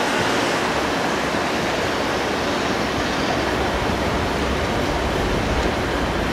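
KuMoYa 443-series inspection electric railcar running slowly along the platform track: a steady rush of running noise, with a low rumble growing stronger in the second half.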